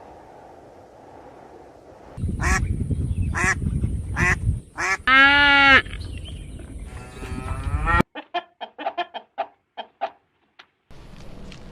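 Farm fowl calling: a few separate loud calls, then one long drawn-out call about halfway through. After a sudden cut comes a quick run of short clipped calls.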